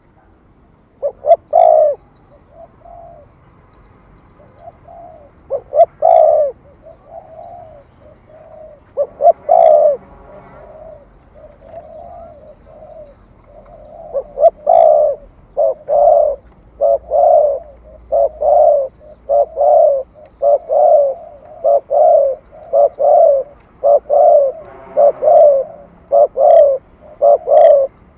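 Spotted dove cooing, in the rapid 'thúc gù' style used to provoke other males: a few scattered coos at first, then from about halfway a quick, steady run of coos, about two a second.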